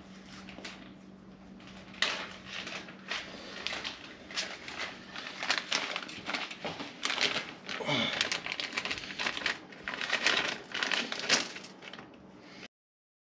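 Small loose metal hardware, bolts and fasteners, clinking and jingling as it is handled: a run of quick metallic clinks that starts about two seconds in and cuts off suddenly near the end.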